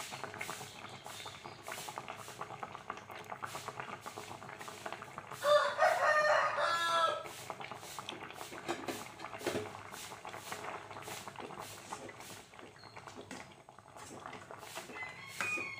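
A rooster crowing, one loud crow about five seconds in lasting a second and a half, with another call starting near the end. Under it, the faint crackle of a coconut-milk fish stew simmering in a steel pot.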